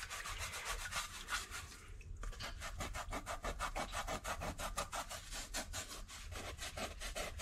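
Hand rubbing over a steel plate soaked in citric acid, smearing the loosened rust off, in quick back-and-forth strokes that settle into a fast, even rhythm about two seconds in.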